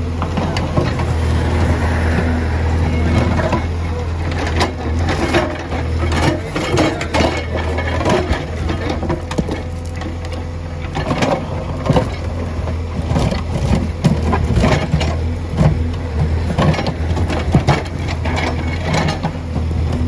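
Case 851EX backhoe loader's diesel engine running steadily as its backhoe bucket digs through broken asphalt and stony soil, with repeated scrapes, knocks and crunches of slabs and stones that grow busier in the second half.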